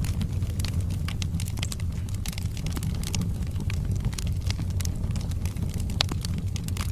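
Wood fire burning in a fireplace: a steady low rumble of flames with irregular sharp crackles and pops from the burning logs, one louder pop about six seconds in.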